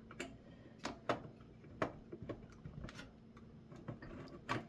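Scattered sharp clicks and ticks of a screwdriver taking screws out of the back of a computer case, irregularly spaced, the loudest near the end.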